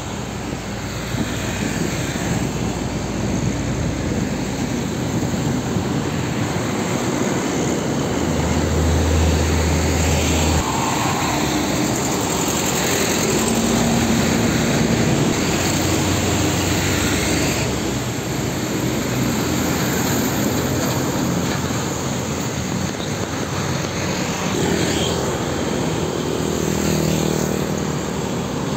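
Heavy road traffic: diesel trucks and motorcycles passing close by in a steady wash of engine and tyre noise, with a deep engine drone swelling about a third of the way through as a truck goes by.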